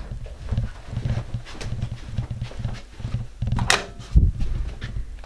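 Muffled footsteps and handling noise from walking with a handheld camera along a carpeted hallway, dull thumps about twice a second with light rustling, and one louder thump about four seconds in.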